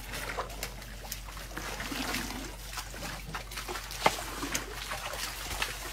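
Shallow muddy water splashing and sloshing as African elephants wade through a puddle, with irregular splashes and drips, the sharpest about four seconds in.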